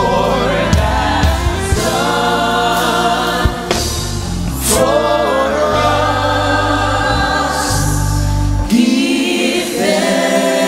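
Live gospel worship music: a lead singer and a group of backing singers singing together over a band, with deep held bass notes that drop out near the end.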